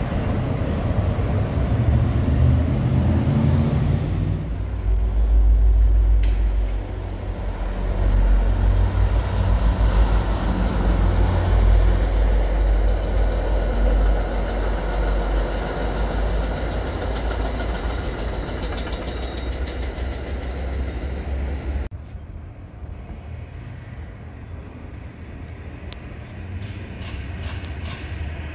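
Green Line light-rail train running on an elevated track, heard as a loud, steady low rumble. The rumble drops suddenly about 22 seconds in, and a few light clicks follow near the end.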